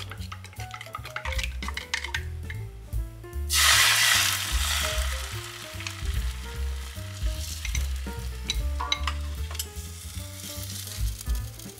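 Chopsticks clicking quickly against a glass bowl as eggs are beaten, then beaten egg poured into a hot rectangular tamagoyaki pan, sizzling loudly from about three and a half seconds in and settling to a softer sizzle, with a few taps of utensils on the pan. Background music plays throughout.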